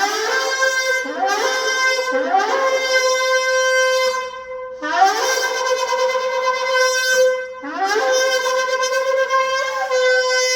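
Gemsbok (oryx) horn shofar blown in a series of blasts, each one swooping up in pitch into a held, bright tone. Three short blasts come in quick succession, then after a brief pause two longer held blasts.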